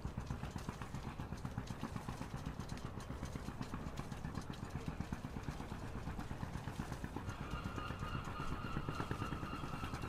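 A boat engine idling with a low, rhythmic chugging. A faint steady whine joins about seven seconds in.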